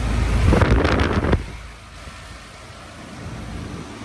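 Outdoor heat pump condenser units running in cool mode, with a loud rush of wind buffeting the microphone for about the first second and a half, then a steadier, quieter whoosh of the units.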